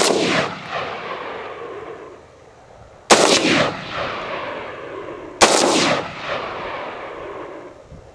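Bushmaster XM15 AR-15 rifle firing single shots. One shot goes off as the sound begins, and two more follow about three and five and a half seconds in. Each shot is followed by a long echo that rolls away over about two seconds.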